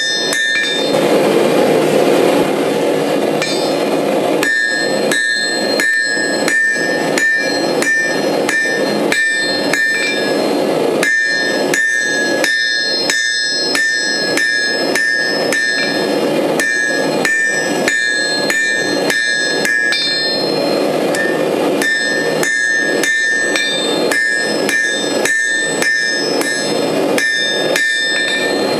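Hand hammer striking hot steel on an anvil, forging out a graver blank: steady blows about two a second, each with a bright ringing tone from the anvil, in runs broken by short pauses. Near the start the blows stop for a few seconds and a steady rushing noise fills the gap.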